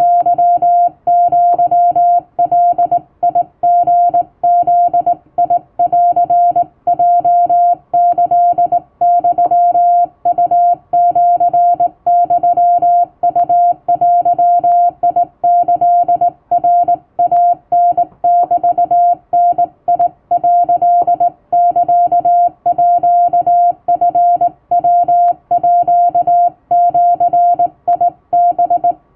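Hand-keyed Japanese (wabun) Morse code: a single steady tone of about 700 Hz switched on and off in dots and dashes, with brief pauses between characters.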